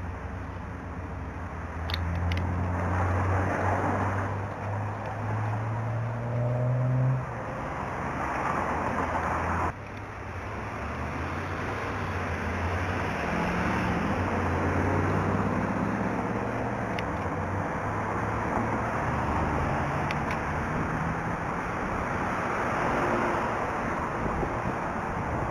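Road traffic on a busy street: a nearby vehicle's engine running and picking up speed, its pitch stepping up over the first several seconds, over steady tyre and traffic noise.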